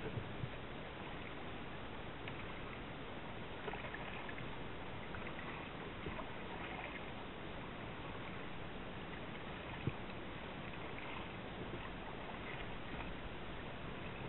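Water lapping and trickling against a kayak hull as the kayak moves slowly while trolling, over a steady hiss. There is one small knock about ten seconds in.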